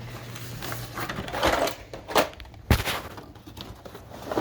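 Things being handled while rummaging through a container: a few sharp knocks and clatters, the loudest a little over two seconds in.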